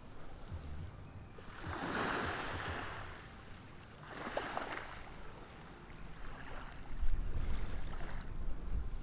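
Ocean waves breaking and washing up the shore in repeated swells of surf noise, the biggest about two and four and a half seconds in. A low, buffeting rumble of wind on the microphone comes in near the end and is the loudest part.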